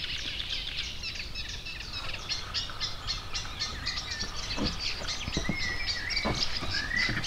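Evening chorus of many birds chirping and singing at once, with a few soft knocks in the second half.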